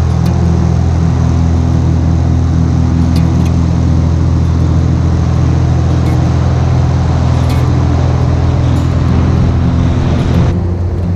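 Single-engine Cessna's piston engine and propeller running steadily at takeoff power through the takeoff roll and climb-out, a constant drone under a rush of air. About ten and a half seconds in, the rushing noise cuts off abruptly, leaving a duller engine sound.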